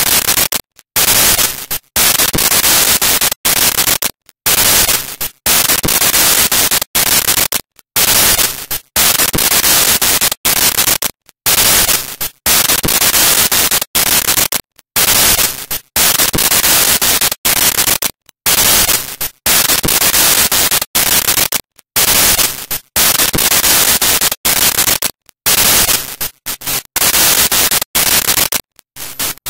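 Loud, even static hiss that cuts out completely in short gaps, roughly once a second at irregular intervals.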